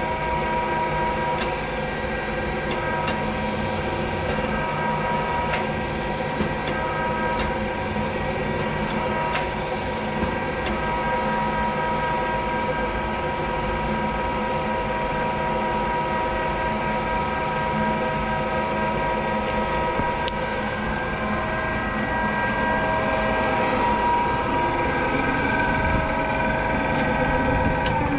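Prescott Drillunit 150-G drill press powered up and running, giving a steady hum made of several fixed tones, with a few light clicks in the first ten seconds.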